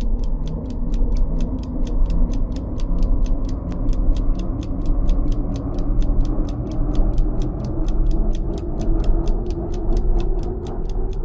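Intro music with a crisp ticking beat about four times a second over a steady deep bass and held chords.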